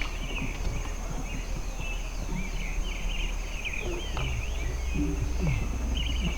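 Several small birds chirping and singing in quick, overlapping calls, over a thin, steady, high-pitched insect trill.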